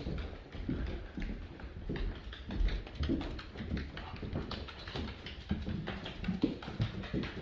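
Irregular light tapping and clicking of steps moving about on a hard floor.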